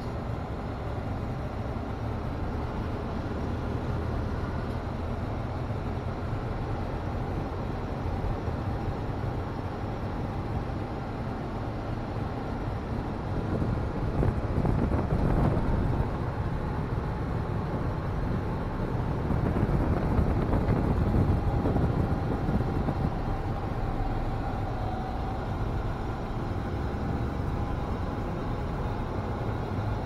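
Steady road noise inside a moving vehicle's cabin: a low rumble of tyres and engine with a hiss of air, swelling louder about halfway through and again a few seconds later.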